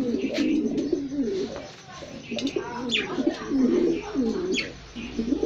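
A loft full of domestic pigeons cooing, many calls overlapping throughout, with a few short high chirps sweeping downward now and then.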